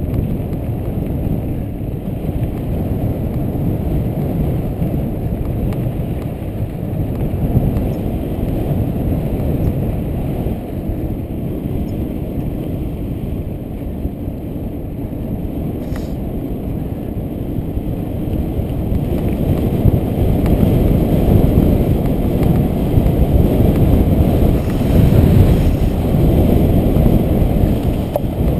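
Wind buffeting a helmet-mounted camera's microphone, mixed with mountain bike tyres rolling over a dirt trail. The rumble is steady and grows louder about two-thirds of the way through.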